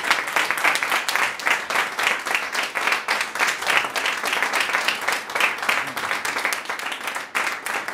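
A small seated audience applauding, many hands clapping at once in a dense, steady patter.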